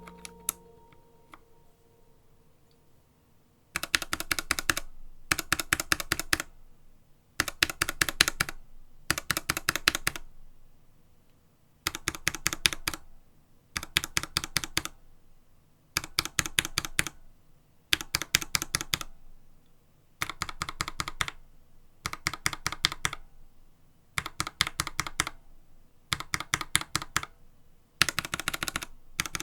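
Mechanical keyboard fitted with retooled Gateron Ink Black linear switches, typed in short rapid bursts of keystrokes, each burst about a second long and repeating every two seconds or so. The first burst starts a few seconds in, after a fading tail of music.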